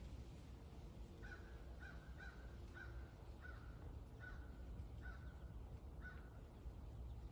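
A bird calling in a run of about seven short, evenly spaced calls, roughly one every two-thirds of a second, starting about a second in. A steady low rumble underneath.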